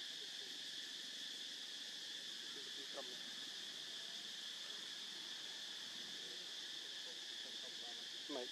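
Steady high-pitched drone of forest insects, with faint distant voices underneath. A short sweeping call comes about three seconds in and a louder one near the end.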